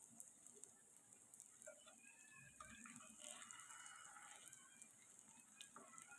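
Near silence: faint room tone with a few faint, indistinct short sounds.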